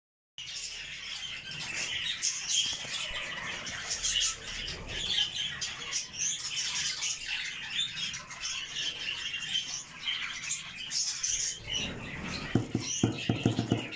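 Budgerigars chattering: a busy, unbroken run of short high chirps and squawks. Near the end a quick run of low clicks and rustles joins in.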